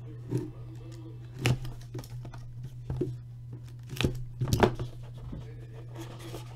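Plastic shrink wrap being slit and torn off a trading-card hobby box: scattered crinkling with several sharp snaps and clicks, the loudest cluster a little past the middle. A steady low hum runs underneath.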